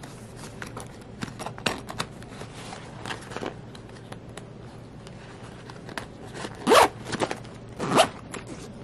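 Zipper of a Fjällräven Kånken sling bag being pulled: soft rustling and clicks of handling, then two quick loud zips about a second apart near the end.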